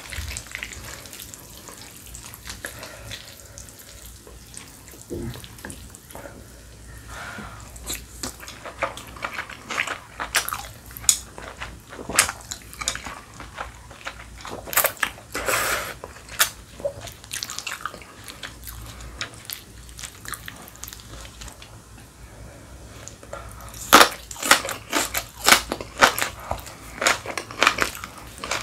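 Slurping and chewing of spicy naengmyeon noodles, with chopsticks working the sauced noodles in a glass bowl at the start. A longer slurp comes about halfway, and a quick run of wet slurping and smacking sounds near the end.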